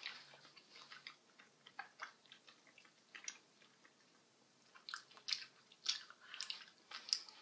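Faint chewing of a soft, gum-like candy: scattered small wet clicks of the mouth, sparse at first and coming more often in the last couple of seconds.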